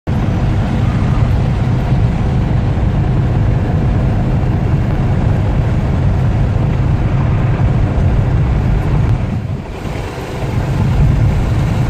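Volkswagen camper bus at highway speed, heard from inside the cab: a steady low drone of engine, road and wind noise. It eases briefly about nine and a half seconds in.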